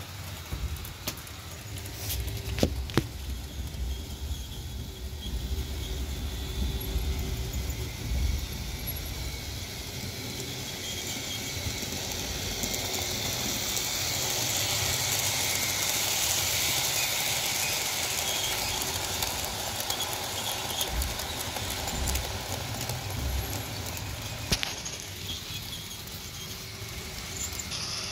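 Model trains running on the layout: the whir of a model diesel locomotive's motor and its wheels on the rails, with a few sharp clicks in the first few seconds. The sound swells to its loudest about halfway through as the locomotive runs close by, then fades.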